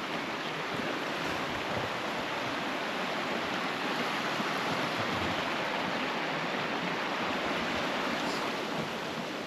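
River or stream water rushing steadily, an even, continuous noise.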